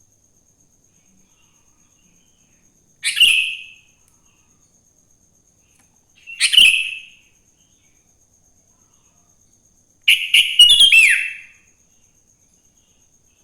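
Sooty-headed bulbul (kutilang) calling three times, short bright phrases a few seconds apart, the last one longer and ending in a falling note.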